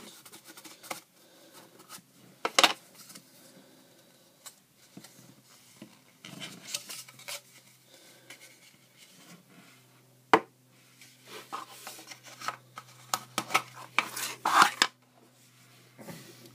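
Hands working a Zippo brass lighter out of its presentation box: scattered hard clicks and knocks with rubbing and scraping of the packaging. One sharp click comes about two and a half seconds in, another near the middle, and a flurry of knocks near the end.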